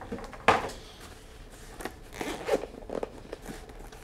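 The zipper of a small carrying case being pulled open in several short strokes, with a sharp knock about half a second in.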